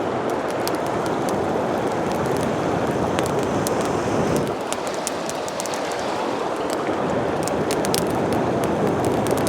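Mountain river rushing steadily, with many small sharp ticks and snaps scattered over it.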